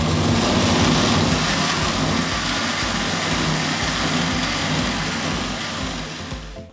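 Electric mixer grinder motor running steadily as it blends a thick, chilled mango ice cream mixture in its steel jar. It tapers off and stops near the end.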